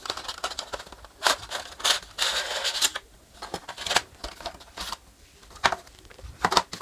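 Cardboard packaging handled by hand: an earphone box's inner tray is slid out of its sleeve, with a scraping rustle of cardboard about two seconds in, among several sharp taps and clicks of cardboard and a paper card.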